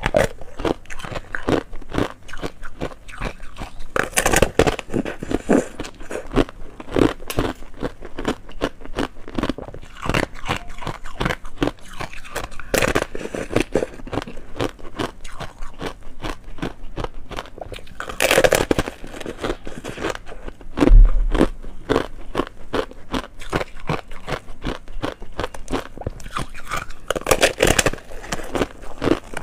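Biting and chewing a block of frozen foam ice: dense, crackling crunches of thin hard ice, with several louder bites. One loud low thump about two-thirds of the way through.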